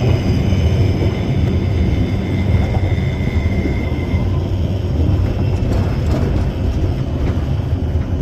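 Shipley tramway car running on its rails: a steady low rumble with a thin high whine that fades out about four seconds in.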